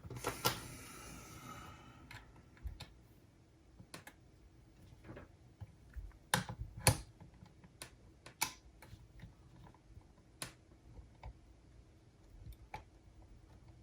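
Small hand tools clicking and tapping against the plastic and metal parts of a Sony MZ-RH1 minidisc recorder while a super-glued screw is worked loose, with a short scraping rush at the start and irregular sharp clicks after.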